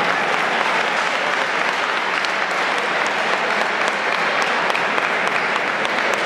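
Large crowd applauding steadily, a dense, even clapping.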